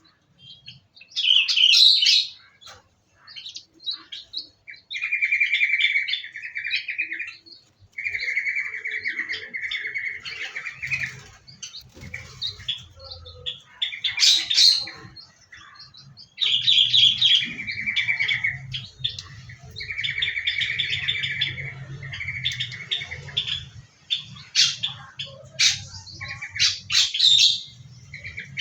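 Small cage birds in an aviary chirping and calling, with a repeated rapid trill about two seconds long and sharper high-pitched chirps between. A low hum joins about a third of the way in.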